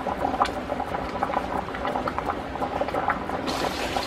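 A large stockpot of bean soup boiling on an electric stove: steady bubbling with small pops and crackles.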